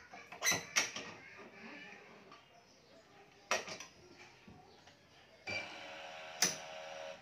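Sharp metallic clicks of the string clamps being set on a badminton stringing machine: two close together at the start and one about three and a half seconds in. About five and a half seconds in, the digital machine's motorised tension head starts pulling the string with a steady hum. A sharp click comes partway through the pull.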